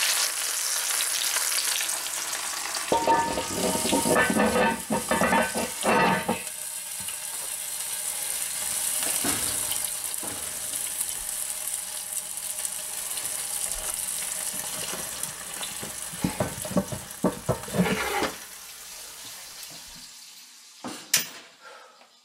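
Hot fat sizzling around a turkey in a preheated cast iron Dutch oven, with clusters of metal clanks and scrapes from about three to six seconds in and again around sixteen to eighteen seconds in as the heavy cast iron lid and pot are handled. The sizzle fades out near the end, followed by a single knock.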